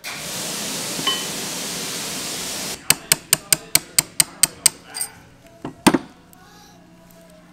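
A steady hiss for nearly three seconds, then a hammer tapping a steel punch in quick succession: about ten sharp metallic strikes at four or five a second. A few scattered knocks follow, one heavier about six seconds in. This is a key being punched out of the keyway on a Subaru STI 6-speed gear shaft.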